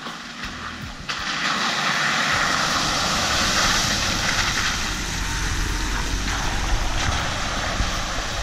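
2017 Jeep Wrangler Unlimited Rubicon's V6 engine and tyres driving through muddy puddles on a dirt trail: a rushing splash of water from about a second in, with the engine rumble building as it nears and passes, loudest about three to four seconds in.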